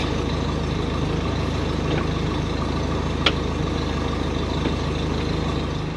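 Mercury outboard motor idling steadily, with a couple of faint clicks about two and three seconds in.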